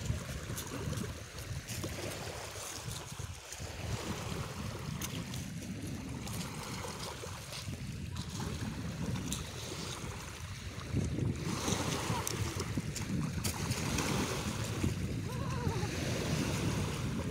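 Wind buffeting the microphone over small lake waves lapping on a pebble shore, growing louder about eleven seconds in.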